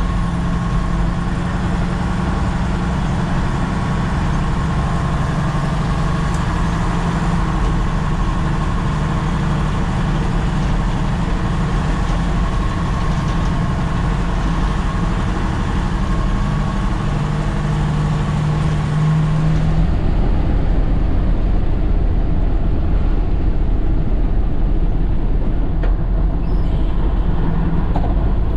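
Diesel engine of a Nissan CK 31 L concrete pump truck running steadily under way, heard from the cab. About 20 seconds in, the sound changes: the high hiss falls away and the low rumble gets a little louder.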